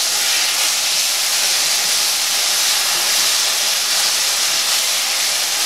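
Smoked chicken wings sizzling steadily in a hot stainless steel pan of melted butter and pepper jelly as they are turned in the glaze.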